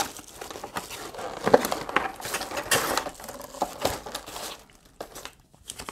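Cardboard box and paper inserts being handled: irregular rustling and crinkling with small clicks as the box is opened and papers are pulled out. The rustling is busiest in the middle and dies down near the end.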